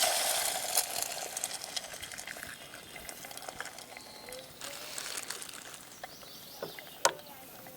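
Food sizzling in a hot pan, loudest at the start and dying down over a couple of seconds. Faint bird chirps follow, and there is a sharp click near the end.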